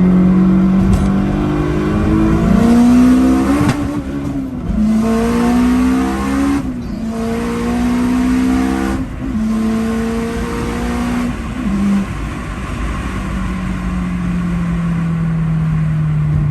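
Turbocharged Honda S2000 engine accelerating hard through the gears: the note climbs, dips briefly at three upshifts, then settles into a steady drone that slowly falls as the car eases off.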